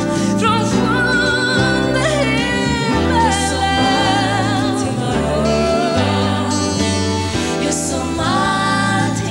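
A woman singing a ballad live, holding long notes with vibrato over a band with acoustic guitar and backing singers.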